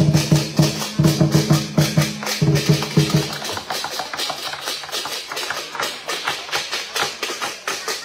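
Lion dance percussion: a deep drum and clashing cymbals playing a fast, even beat. The drum drops out about three seconds in, leaving the quick cymbal strokes, and comes back right at the end.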